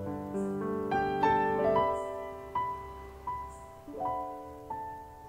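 Background music: a slow piano melody, one note after another, each ringing and fading.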